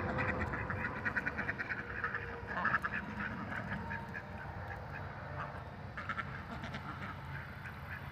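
A flock of white domestic ducks quacking in a rapid, busy chorus as they crowd the bank begging for food, the calls thickest in the first few seconds.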